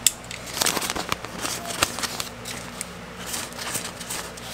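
Utility knife slicing through the kraft-paper facing of fiberglass batt insulation, with the paper crackling and rustling as it is cut and pulled. A string of short, irregular scratchy strokes.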